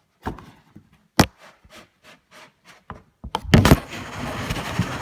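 Headphone packaging being handled: a few knocks, the sharpest about a second in, then from just past the middle a continuous loud scraping and rubbing of the box and its insert.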